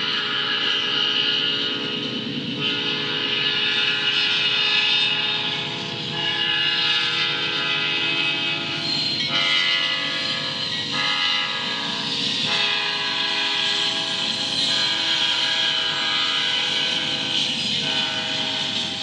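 Locomotive air horn sounding a chord of several tones in a run of long blasts, over the low rumble of an approaching train.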